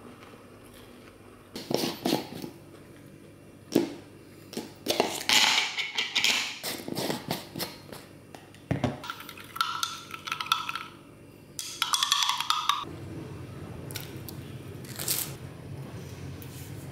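Kitchen sounds of food being prepared: irregular clatter, knocks and rustling, with a steady hum starting about thirteen seconds in.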